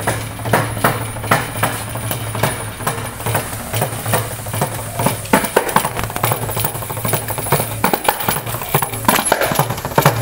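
Kanjira, the small South Indian frame drum with a lizard-skin head and a single pair of metal jingles in its frame, played with the fingers in a fast, irregular solo of sharp strokes and jingle rattle. A steady low hum runs underneath.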